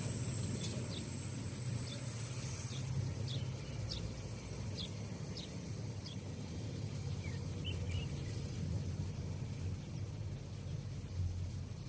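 Outdoor ambience: a steady low rumble with birds chirping, many short chirps in the first half and a few more near the end.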